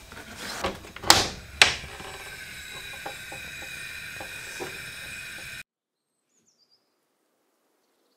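Oven door being opened, with two sharp clunks about a second in, then a steady hum with a few faint ticks that cuts off suddenly near the middle.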